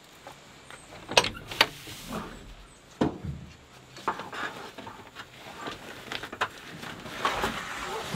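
Gear being handled and pulled out of the back of a pickup truck: several sharp knocks and clunks, the two loudest about a second in, then rustling of bags and fabric near the end.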